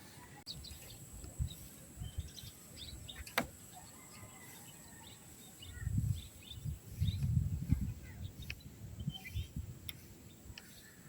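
Birds chirping in short, scattered calls, with bursts of low rumbling about six to eight seconds in.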